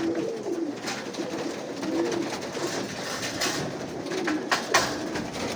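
Fancy pigeons cooing in a loft, several low rolling coos repeating and overlapping, with a few sharp clicks in the second half.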